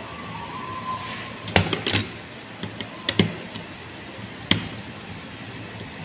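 Small clicks and taps of a screwdriver tightening a screw terminal on a fire alarm device's circuit board, fastening an end-of-line resistor's lead. Sharp clicks come about one and a half, two, three and four and a half seconds in.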